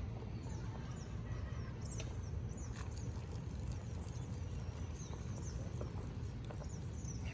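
Outdoor ambience: a steady low rumble with many faint, short, high chirps and a few light clicks.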